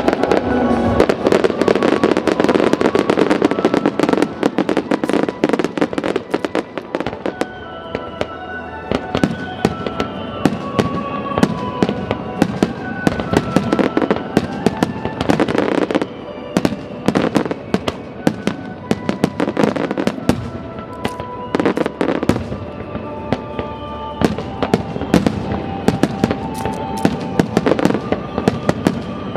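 Aerial fireworks bursting and crackling in rapid, dense succession, with music over loudspeakers playing alongside.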